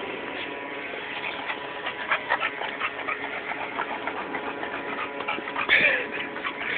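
Dogs close by: a run of short clicking and scuffling sounds, then a brief louder cry falling in pitch near the end.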